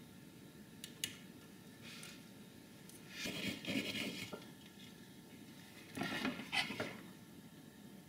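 Small metal hand tools being handled and put down: a couple of light clicks about a second in, then two short spells of scraping and clinking, around three seconds in and again around six seconds in.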